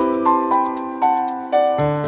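Background music: a gentle piano-like keyboard melody over held chords, its notes changing about every half second, with a light ticking beat.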